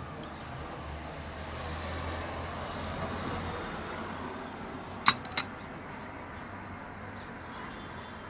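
Steady background noise with a low rumble that swells and fades over a few seconds, like a vehicle passing, then two sharp clicks in quick succession about five seconds in.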